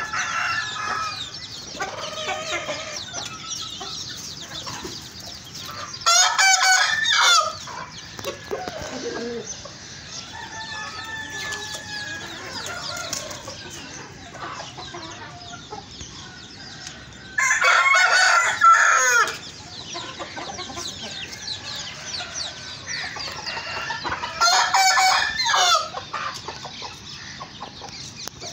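Backyard roosters crowing three times, each crow lasting about a second and a half: a few seconds in, about midway, and again near the end. Hens and roosters cluck softly throughout.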